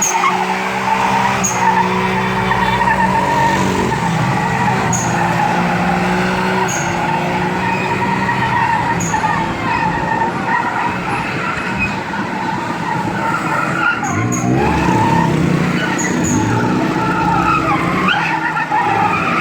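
Turbocharged Daihatsu Hijet kei truck skidding, its tires squealing steadily under power with the engine running hard.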